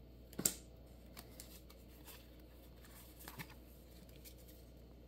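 Pokémon trading cards handled and shuffled in the hands: one sharp card swish about half a second in, then a few faint flicks as cards are slid through the stack.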